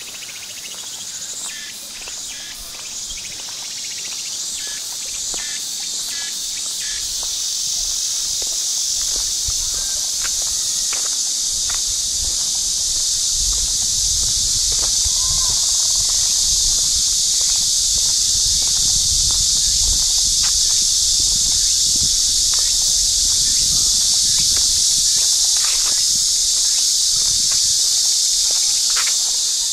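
A loud, steady, high-pitched insect chorus. It swells over the first dozen seconds and then holds. Scattered light clicks and a low rumble in the middle sit under it.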